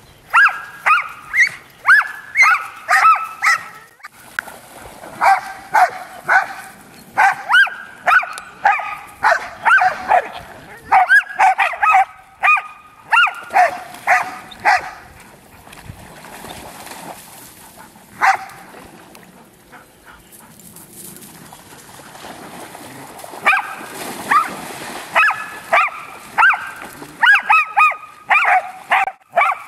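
A pack of Groenendaels (Belgian Shepherd dogs) barking and yipping in play, with rapid high-pitched barks in quick runs. There is a long stretch of barking, then a lull with a single bark, then a second run of barking near the end.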